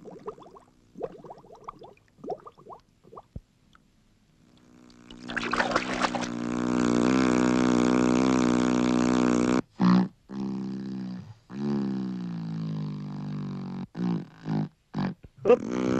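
A cartoon sound effect: a low, buzzing drone with many overtones. It slides up in pitch about five seconds in and is held steady for several seconds, then comes in short chopped pieces and one falling slide. A few faint small clicks come before it.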